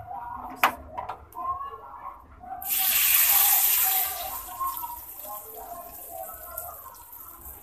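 Hot oil tempering of cumin seeds, red chillies and curry leaves poured onto yogurt: a sudden loud sizzle about two and a half seconds in, fading over the next couple of seconds into a soft crackle.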